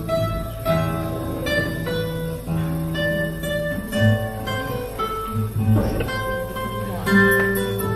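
Classical nylon-string guitar played solo, a plucked melody of single notes over held bass notes.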